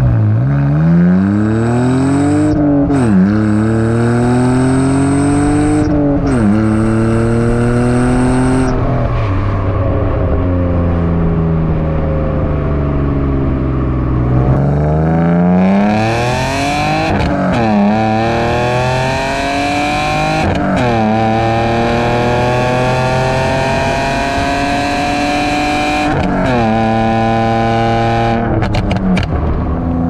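BMW E46 325i's M54B25 inline-six heard at the exhaust tips, accelerating hard through the gears: the pitch rises and drops back at each upshift, then falls away as the driver lifts off. The first pull is with a muffler delete over stock cats and resonators. The second, about halfway through, is with eBay catless headers and muffler delete, brighter and harsher up high.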